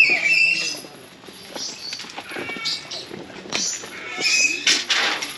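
Birds calling: a string of short, shrill squawks that overlap, loudest at the start and again near the end.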